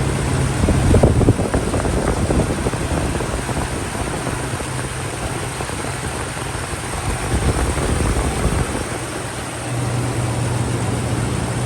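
Toyota Tundra engine running at idle with a steady hum, on its first start after a new water pump and thermostat were fitted. It is louder for a moment about a second in, and the hum grows stronger near the end.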